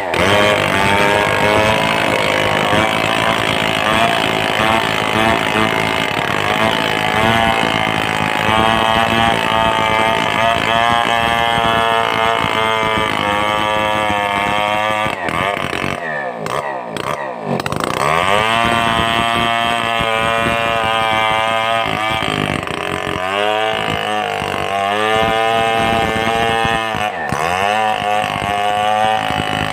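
Stihl 070 two-stroke chainsaw running with a nearly worn-out chain, its engine speed rising and falling. It drops low briefly about halfway and again near the end, then picks back up.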